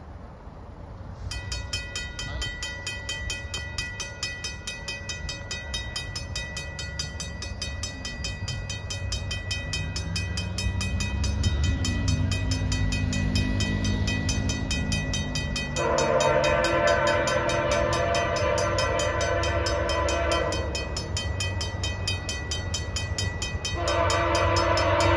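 A Griswold mechanical crossing bell starts ringing rapidly about a second in as the level crossing activates. From about the middle, the Nathan K1L13 air horn of an approaching Via Rail F40PH-2D locomotive sounds a long chord blast, and a second blast begins near the end.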